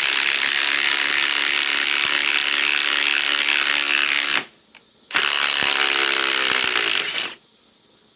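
Ryobi ONE+ HP compact impact wrench hammering as it drives a lag screw into pre-drilled wood. A long run stops about four seconds in, and after a short pause a second run of about two seconds follows.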